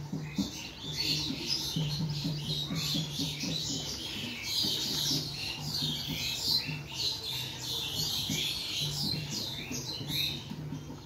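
Many small birds chirping, short high chirps overlapping without pause, over a low steady hum.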